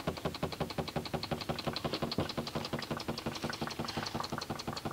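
A machine running with a rapid, even knocking over a low hum.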